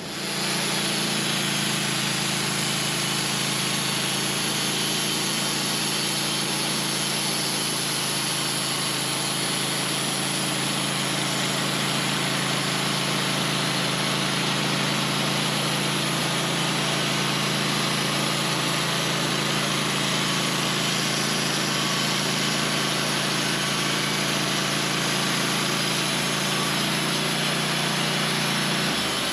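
Portable sawmill's engine running at a steady speed, an even hum that does not rise or fall.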